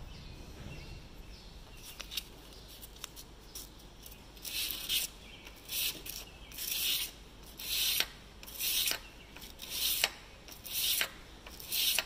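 Steel baler twine knife rubbed back and forth on abrasive paper on a workbench, sharpening its edge and scraping off the paint. After a few light clicks, a run of about eight rasping strokes begins about four seconds in, roughly one a second.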